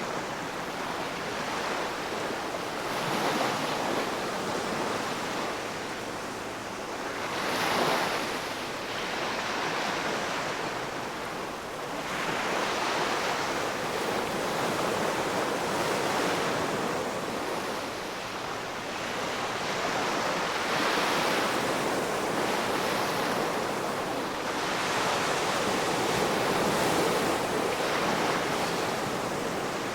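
Ocean surf: waves breaking and washing up the shore in a continuous hiss that swells and eases every few seconds, with one sharper break about eight seconds in.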